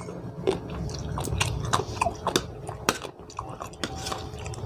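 A person biting and chewing food close to the microphone, with irregular crunchy clicks and wet mouth sounds.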